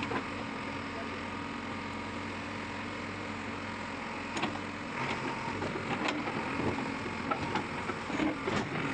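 JCB 3DX backhoe loader's diesel engine running steadily, with a run of sharp knocks starting about four and a half seconds in as its arm works at the back of the tipper truck.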